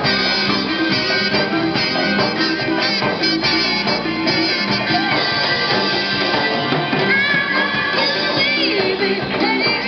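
Live amplified street band with drum kit and electric guitars playing a western pop-rock song, with no breaks.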